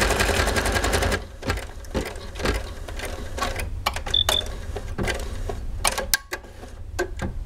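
Bernina Artista 200 sewing machine embroidering with rapid, even needle strokes that stop about a second in. Scattered clicks follow, with a short high double beep about four seconds in.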